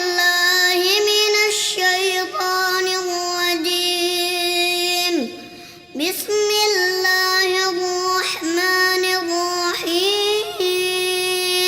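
A young boy reciting the Quran in a slow, melodic tajwid chant, holding long drawn-out notes with ornamented turns. He breaks off briefly for breath about five seconds in.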